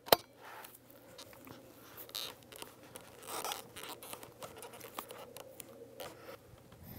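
Handling noise from a scoped chassis rifle on a bench rest: one sharp click right at the start, then faint scattered taps and rustles as the shooter settles in behind the gun. No shot is fired.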